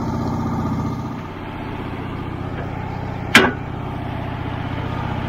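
Portable band sawmill's engine idling steadily, with a single sharp knock about three and a half seconds in.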